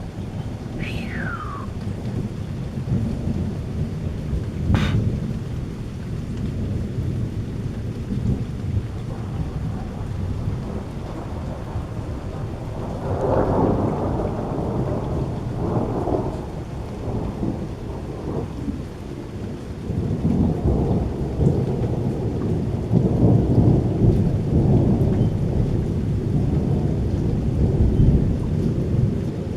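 Thunder rumbling on and on over steady light rain, with heavier rolls of thunder about halfway through and again through the last third. A sharp click comes about five seconds in.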